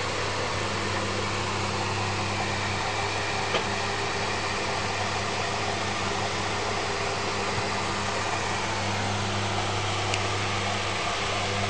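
Electric desk fan running: a steady whir over a low hum, with one faint tap about three and a half seconds in.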